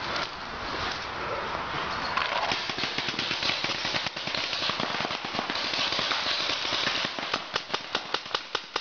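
Paintball markers firing: scattered pops over close rustling, then a fast regular string of shots, about five or six a second, in the last two seconds.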